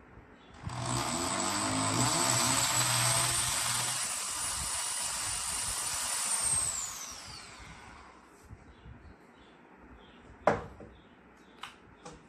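Corded electric drill boring a small hole into the underside of a wooden tabletop. It runs for about six seconds with a high whine, then winds down as it stops. A single sharp knock follows a few seconds later.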